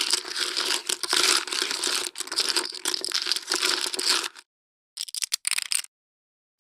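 Clay-type poker chips handled in a pile, a long run of dense clattering and clicking for about four seconds, then a short burst of chip clicks a second later.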